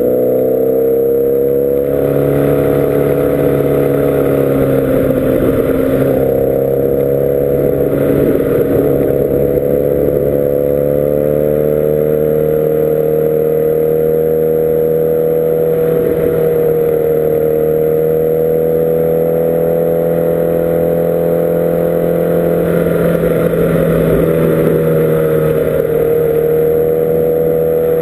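Kawasaki Ninja ZX-10R SE's inline-four engine running at steady high revs under the rider, heard from onboard the bike. The engine note holds nearly level, dipping and rising slightly a few times through the bends.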